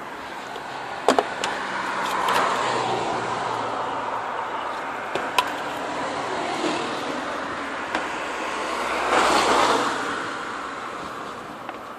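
Handling noise from hands working a spark plug lead in a car's engine bay with the engine off: a few sharp clicks about a second in and again near the middle, over a rushing noise that swells and fades twice.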